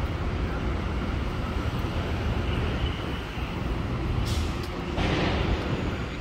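City street traffic: a steady low rumble of passing vehicles, with a short hiss of air a little after four seconds in, followed by a louder hiss lasting about a second.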